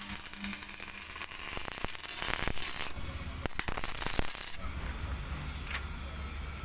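MIG welding arc crackling and hissing with fine irregular crackle. It stops a little past halfway, leaving a steady low hum.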